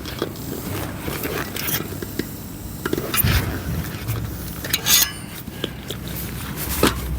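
Small tools being handled and rummaged through in a tool kit: light clinks, knocks and scrapes, with a few sharper knocks about three, five and seven seconds in.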